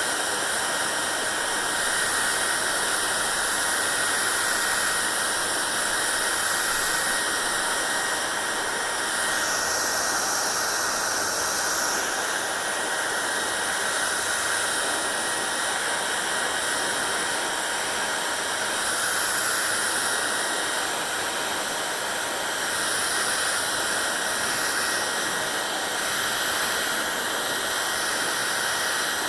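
Hair dryer running steadily: a continuous blowing hiss with a faint steady high whine, its tone shifting slightly now and then.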